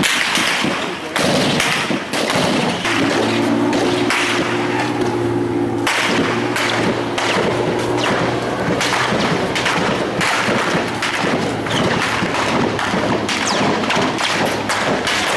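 Close, loud small-arms gunfire: sharp shots following one another in quick succession, several a second, with no let-up.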